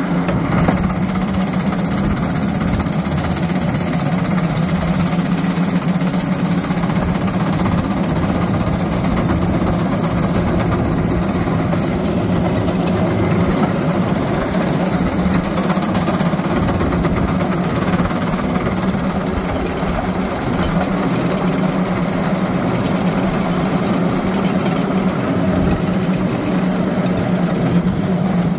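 Small engine of a railcart running steadily at speed, with its steel wheels rumbling and clattering along the rails. The sound holds level the whole time, with no change in speed.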